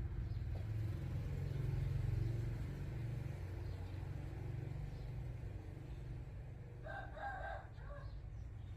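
A rooster crowing once, briefly, about seven seconds in, over a steady low rumble.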